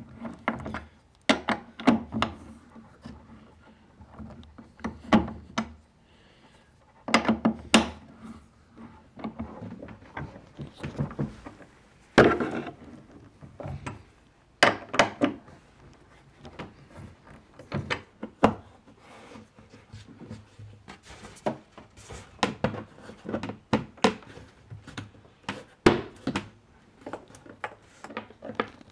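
Irregular clicks and knocks of hand assembly on a wooden wall-bed frame: a long hex wrench turning a machine screw, and metal hardware knocking and rubbing against the wooden panels.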